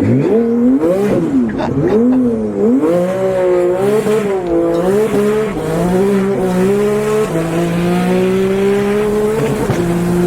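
Twin-turbocharged 2019 Porsche 911 GT3 RS flat-six being revved in several quick throttle blips, its pitch rising and falling each time, then settling into a steady idle near the end with one more short blip.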